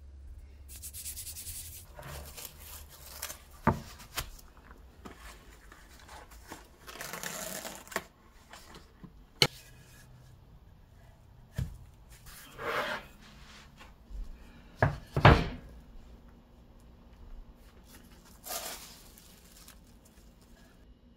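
Kitchen handling sounds: plastic cling film rustling and wooden cutting boards sliding and knocking on a countertop, with several sharp knocks, the loudest a close pair about two-thirds of the way through.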